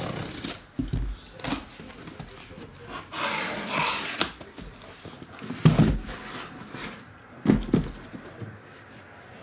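A cardboard shipping case being opened and handled: flaps scraping and rustling, with a longer rustling scrape about three seconds in. Several knocks and low thumps as the case and the foil-wrapped boxes inside are moved and set down, the heaviest two in the second half.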